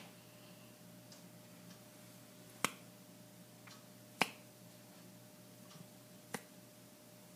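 Three sharp finger snaps, each a second and a half to two seconds apart, the middle one the loudest, over a faint steady hum.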